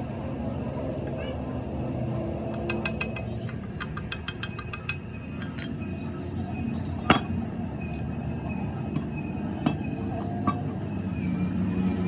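Metal parts and tools clinking and tapping: a quick run of light metallic clicks, then a few single sharp knocks, over a steady low hum.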